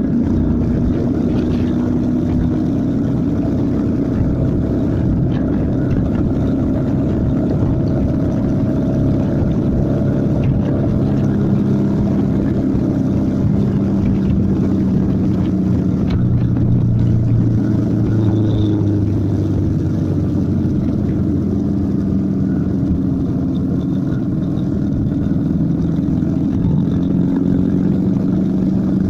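Motorcycle engine running at road speed with wind rush, a steady drone whose note shifts as the bike speeds up and later slows.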